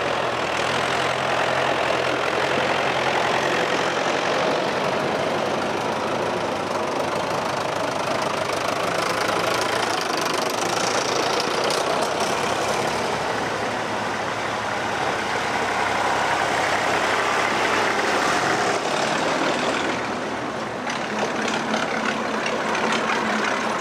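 Vintage tractor engines running as a procession of tractors climbs a dirt track and passes close by one after another, a steady engine clatter that swells and eases a little as each tractor goes past.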